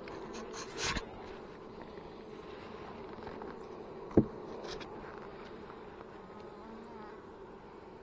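Honey bees buzzing steadily around an opened hive, a low even hum. A few short clicks sound in the first second, and a single sharp thump comes about four seconds in.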